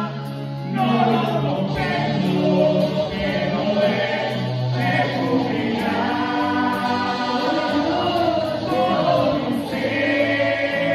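Two men singing a worship song together, accompanied by acoustic and electric guitar.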